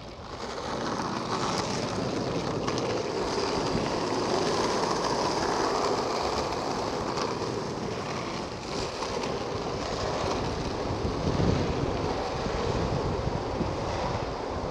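Skateboard wheels rolling on rough asphalt: a steady rumble that fades in over the first second.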